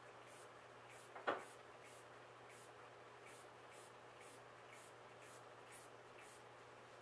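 Small finger-pump spray bottle misting plant leaves: about a dozen faint hissing squirts, roughly two a second, ending near the end. A single short knock about a second in is the loudest sound.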